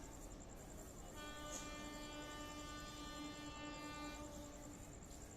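Horn of a WAP7 electric locomotive, faint with distance. A blast dies away at the start, then a long steady blast begins about a second in and stops after about three seconds.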